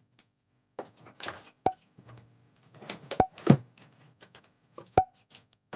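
A run of small knocks and clatters, like objects being handled and set down. Three sharper knocks, about 1.7, 3.2 and 5 seconds in, each ring briefly.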